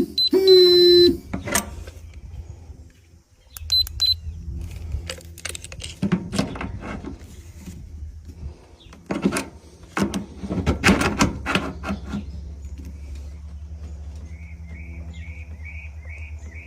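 A steady low hum with scattered knocks and clicks over it, and a quick run of five short high chirps near the end.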